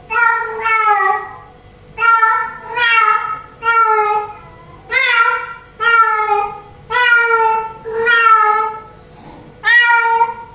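Female domestic cat in heat giving her mating call to a tom: a string of about ten loud, drawn-out meows, each under a second, some coming in quick pairs with short pauses between.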